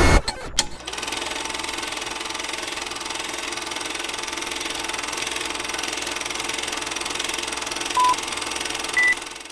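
Film-projector running sound effect under a countdown leader: a steady mechanical clatter with crackle. A short beep comes about eight seconds in, and a higher beep follows about a second later.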